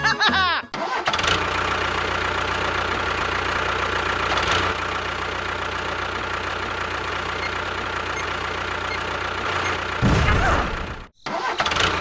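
A small motor running steadily, with an even mechanical whir. It starts under a second in and ends with a brief louder burst about ten seconds in, then cuts off abruptly.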